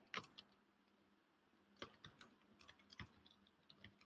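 Faint computer keyboard key clicks: a handful of scattered taps with near silence between them.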